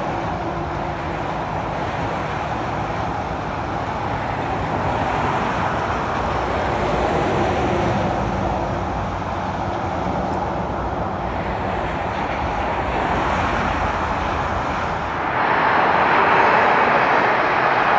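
Steady noise of motorway traffic going by: tyres and engines of passing cars and lorries, swelling and easing as vehicles pass, and growing louder and brighter about fifteen seconds in.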